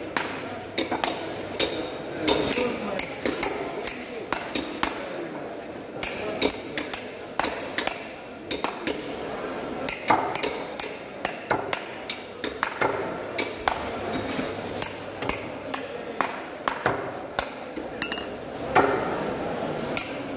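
Large knife cutting a barracuda into steaks on a wooden chopping block: repeated, irregular knocks and clinks as the blade goes through the fish and strikes the block.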